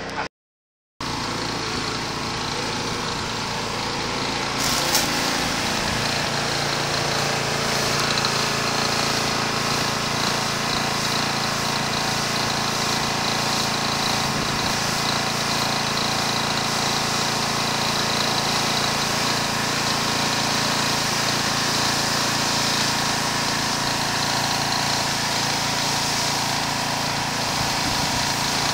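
Pressure washer running steadily, its motor drone mixed with the hiss of the high-pressure water jet striking concrete. There is a brief silent gap near the start.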